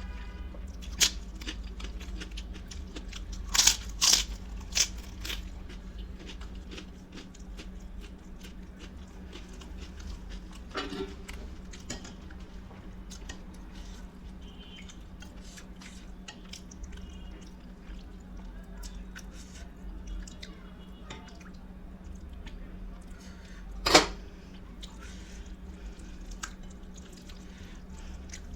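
A person chewing food close to the microphone, with many small wet mouth clicks and a few sharper crunches, several in the first five seconds and the loudest about 24 seconds in, over a steady low hum.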